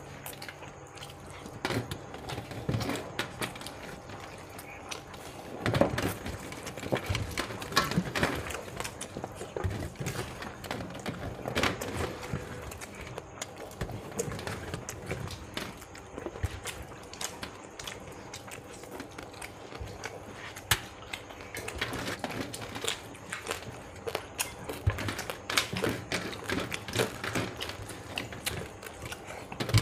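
Rice and fish curry being eaten fast by hand from plates: a steady run of irregular clicks, taps and clatter.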